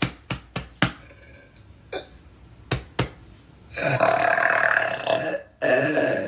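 A woman burping, bringing up excess gas: a few short sharp sounds early on, then one long drawn-out burp with a steady pitch from about four seconds in, and another long burp starting just before the end.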